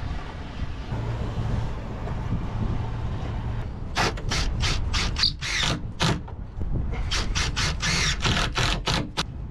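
Quick scraping or rubbing strokes of something worked back and forth on wood by hand, roughly three a second, starting about four seconds in, with a short pause midway.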